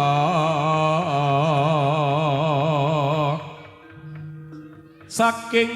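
Javanese sung recitation in a low male voice, holding one long note with a wide, regular vibrato that ends about three and a half seconds in. After a quieter gap the voice comes in loudly again near the end.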